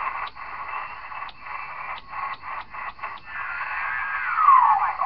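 Converted Cobra 148F CB radio receiving on the 40-meter band through its speaker: band hiss, broken by seven short pops as the channel selector steps through channels. Near the end a whistle falls in pitch as the radio is tuned across a signal.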